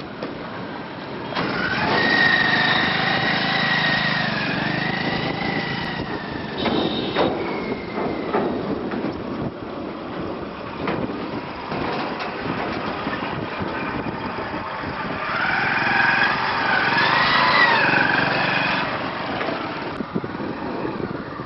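Motorcycle engines running as motorbikes ride slowly across a bridge deck. A high, wavering whine comes in twice, each time for a few seconds, over the engine noise.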